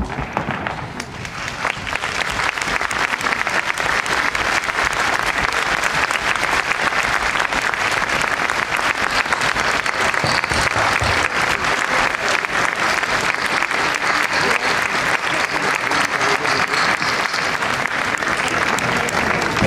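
Large audience applauding, a dense patter of hand claps that builds over the first couple of seconds and then holds steady.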